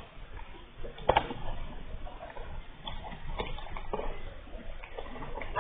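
Scattered light knocks and taps of a spoon against a container as cornstarch is scooped in, the sharpest about a second in.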